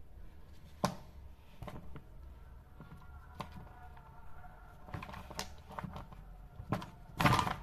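Scattered small clicks and knocks of hands working the wires off an angle grinder's trigger switch and handling its plastic housing, with a louder burst of clatter near the end.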